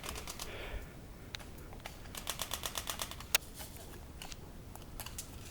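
Airsoft guns firing: a rapid automatic burst at the start and another about two seconds in, each at roughly ten shots a second, with scattered single shots between and after, the sharpest one a little over three seconds in.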